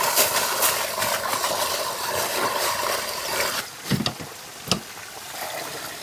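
Water pouring and splashing for about three and a half seconds, then two dull thumps.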